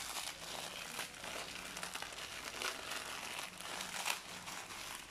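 Dry Maggi instant noodle blocks being broken up by hand, with irregular crackling and the crinkle of the plastic packet.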